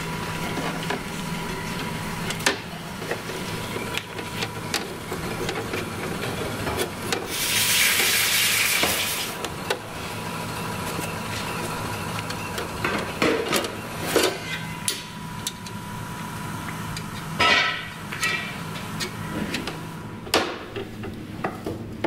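Metal fuel line being handled and bent by hand and with a hand tube bender on a metal workbench: scattered clicks, taps and scrapes of metal on metal. A hiss lasting about two seconds comes some seven seconds in, all over a steady hum.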